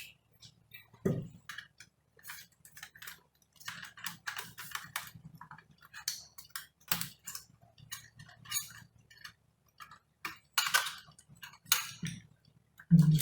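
Small irregular clicks, taps and light scrapes of an opened laptop's internal parts being handled and worked loose by hand.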